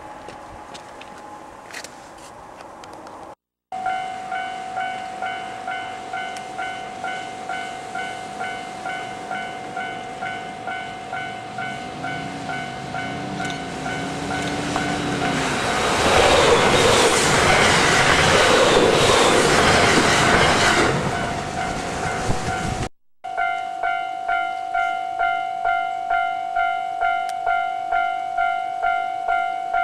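Japanese level-crossing alarm ringing, an electronic ding repeating about one and a half times a second. A train sounds its horn briefly, then passes over the crossing in a loud rush of wheel and rail noise for about six seconds. After a cut, the crossing alarm rings again.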